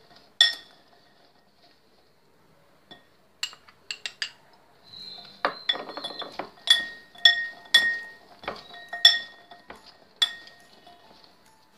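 Glass mixing bowl clinking and ringing as hands toss sugar-coated dried amla candy pieces in it: one clink near the start, a few light ones in the middle, then a run of ringing clinks about twice a second in the second half, with the dry pieces rustling between.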